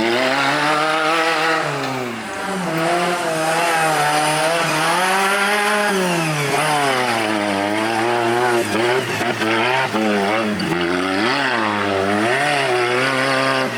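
Off-road 4x4 competition vehicle's engine revving up and down again and again, its pitch rising and falling every second or two.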